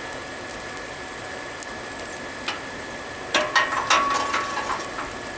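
Electric forge blower running steadily with a hiss and a thin whine. A little over three seconds in comes a quick run of sharp metallic clinks and scrapes with a short ringing tone, as metal is knocked about in the brake-rotor fire pot.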